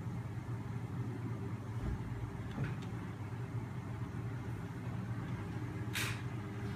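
Homemade neodymium-magnet machine running, its flywheel and magnet shafts spun by a 12-volt DC starter motor, giving a steady low hum. About six seconds in, a short sharp hiss.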